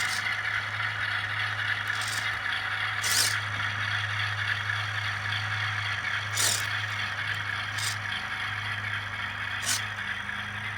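A train running at a coal loader: a steady low hum under a constant rattling, scraping hiss, with a few sharp clicks spaced a second or more apart.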